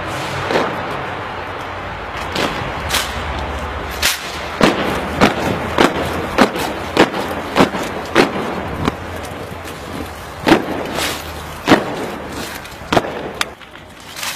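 A squad's boots striking the pavement in unison while marching in step, with sharp strikes falling into a regular beat a little under twice a second in the middle, then a few single louder strikes of drill movements near the end.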